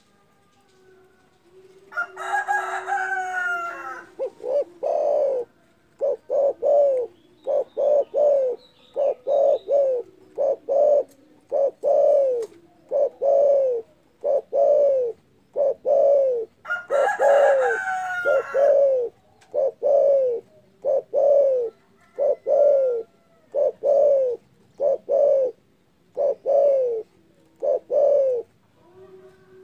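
Derkuku dove singing in full voice: a long, steady run of short low coos repeated about once or twice a second. Twice, at about two seconds in and again around the middle, a louder, higher and harsher call from another bird breaks in over the cooing.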